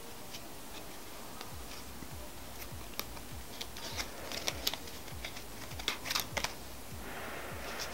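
A deck of playing cards being split, turned and squared between two hands in a cardistry cut (the Diamond Cut): light clicks and snaps of card packets striking each other, scattered, with sharper snaps in the second half.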